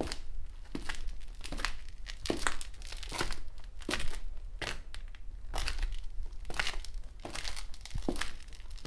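Footsteps of a person walking at a steady pace, a little over one step a second.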